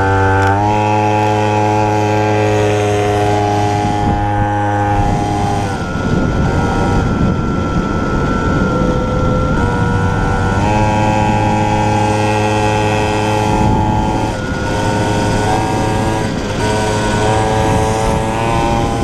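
49cc two-stroke mini cross bike engine running hard while ridden. Its pitch steps up about half a second in, the engine eases off around six seconds in while a rushing noise takes over, and it comes back up steady and high around eleven seconds in.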